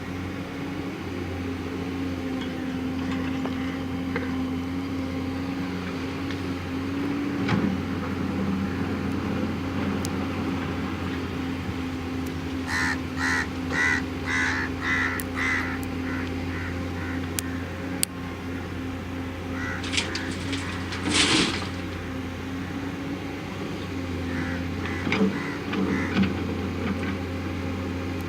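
JCB backhoe loader's diesel engine running steadily at a constant speed. About halfway through comes a quick run of short, harsh repeated squawks, and a louder clattering scrape follows some seconds later.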